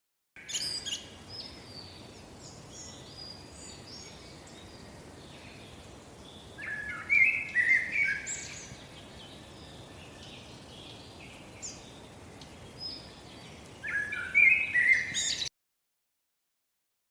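Birds chirping in short bursts over a steady, faint outdoor background hiss. The whole sound cuts off abruptly near the end.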